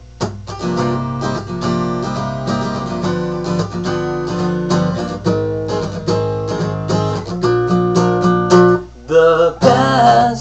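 Acoustic guitar strummed in a steady rhythm of chords as an instrumental passage, with a brief break in the strumming near the end.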